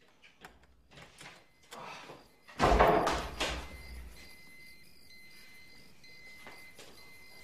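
Glass-paned French door being worked open: small rattling clicks of the latch and handle first, then a loud knock and thud as the door swings open about two and a half seconds in. Afterwards faint steady high tones carry on.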